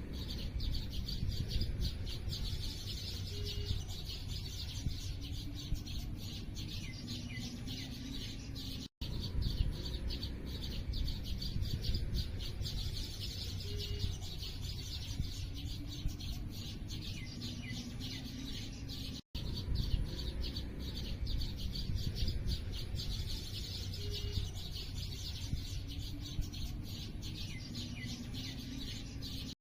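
Many small birds chirping rapidly and continuously over a low background rumble. It is a short recording looped about every ten seconds, with a brief gap at each join.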